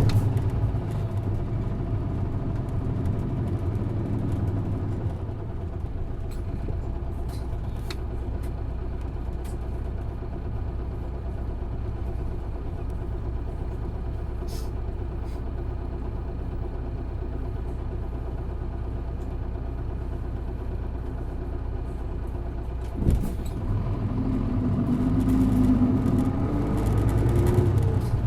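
Isuzu Erga city bus's inline-six diesel heard from inside the cabin: the engine pulls hard at first, then settles to a steady low rumble of engine and road noise, with a single thump about three-quarters of the way through. Near the end the engine revs up again as the bus accelerates.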